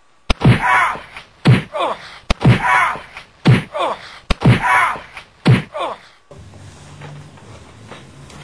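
Six heavy knocks, about one a second, each followed by a short falling ring, with lighter clicks between them; from about six seconds in they give way to a low steady hum.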